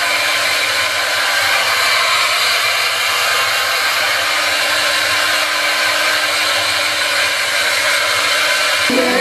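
Handheld hair dryer running steadily, drying wet hair: an even, loud rush of air with a faint hum under it.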